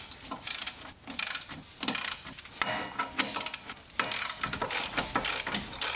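Ratchet wrench with a 15mm socket clicking in repeated bursts as the shock-mount nuts are loosened, with short pauses between strokes.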